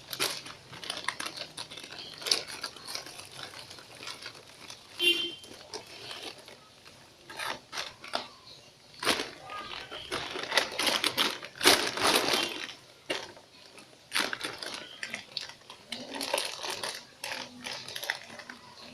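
Plastic packaging crinkling and rustling in irregular bursts as a squishy toy is handled.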